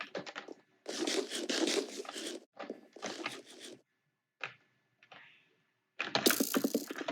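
Typing on a computer keyboard: rapid runs of key clicks in bursts, with a pause of a couple of seconds near the middle before a louder flurry of typing near the end.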